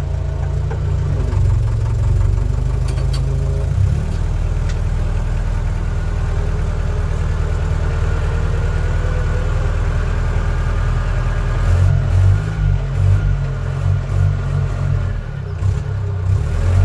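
Tractor engine running, heard from inside the cab. Its note changes about four seconds in, and from about twelve seconds the running turns uneven, rising and falling.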